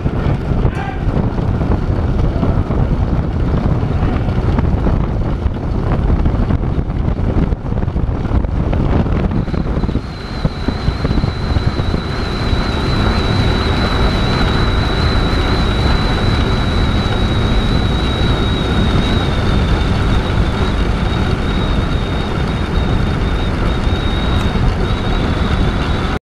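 Wind rushing over a GoPro Hero3+ microphone as a track bike is ridden at race speed around a velodrome. It makes a loud, steady rushing noise. From about ten seconds in, a thin, steady high whine sits on top of it.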